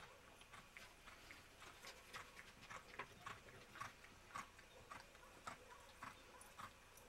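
Faint hoofbeats of a chestnut Quarter Horse mare loping on soft arena dirt: light, uneven footfalls about two a second.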